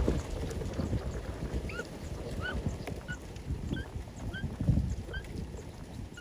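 A bird chirping repeatedly, one short note about every half second, over a low rumble with a few soft thumps.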